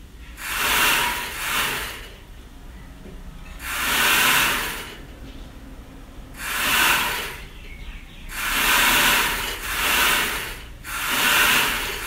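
Sewing machine running in a series of short runs, each about a second long, rising and falling in level, with brief pauses between.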